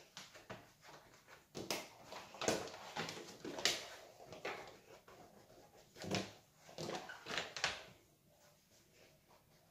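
Irregular rubbing, scraping and soft knocks from a flour-dusted silicone dough mat being folded over sticky bread dough and pressed down by hand.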